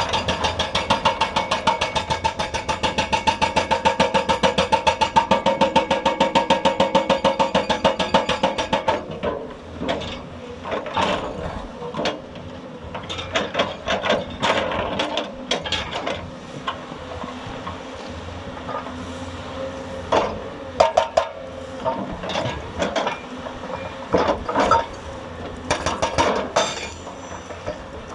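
Hydraulic rock breaker on a Hyundai 290 excavator hammering, a fast, even run of ringing blows for about nine seconds, then stopping. After that come irregular separate knocks and clanks of metal and rock.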